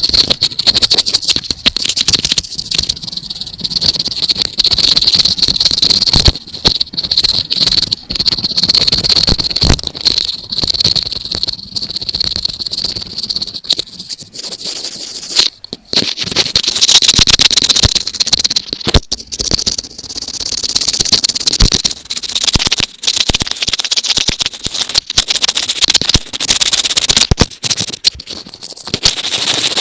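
Close-miked scratching, rubbing and tapping on an earphone's microphone, in the manner of ASMR ear cleaning: a dense, irregular crackle of sharp clicks over a steady hiss.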